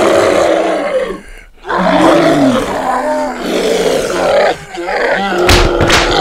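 Zombie groaning and growling sound effects: rough, drawn-out moans that rise and fall in pitch, broken by a short pause about a second and a half in. A short noisy burst comes near the end.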